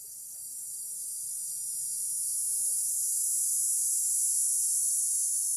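Insects shrilling in a high, even chorus that swells steadily louder over a few seconds.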